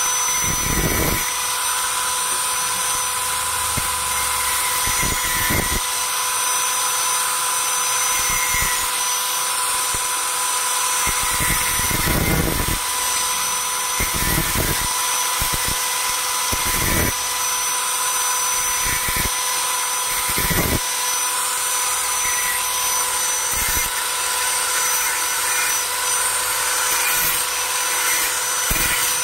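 Electric angle grinder running steadily with a constant whine, its abrasive disc grinding the steel cutting edge of an ID card punch die to sharpen it; the grinding surges irregularly, every second or two, as the disc bites into the metal.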